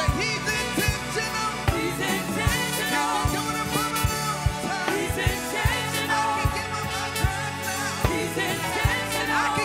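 Live gospel song: a male lead singer and backing vocalists singing over a band with a steady drum beat.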